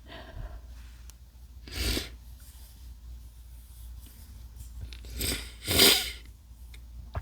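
A man's stifled, quiet sneezes: three breathy bursts, one about two seconds in and two close together near six seconds, the last the loudest.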